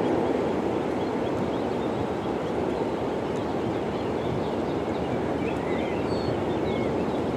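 Steady low rushing outdoor noise that eases slightly in the first second, with a few bird chirps near the end.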